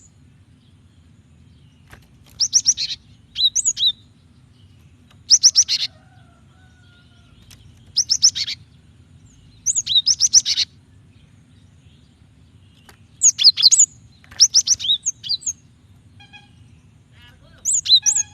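Female cinereous tit (gelatik batu) calling for a male: short bursts of rapid, high chirping notes, repeated every one to two seconds, over a faint low hum.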